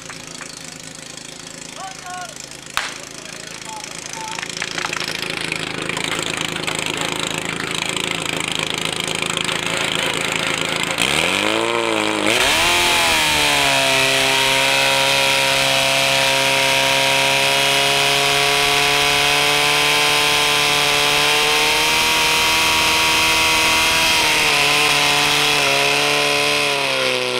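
Portable fire pump's engine running. A single sharp crack about three seconds in is the start signal. About eleven seconds in the engine revs up sharply to full throttle and holds there steadily, with a strong hiss, as the pump drives water out to the jets.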